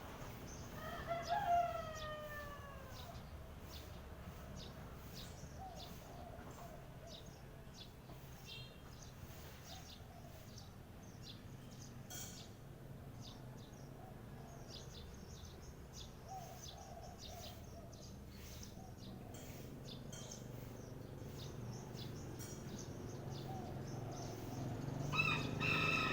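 A rooster crowing once, a long call that falls in pitch about a second in, while small birds chirp on and off throughout. A louder cluster of bird calls comes in near the end.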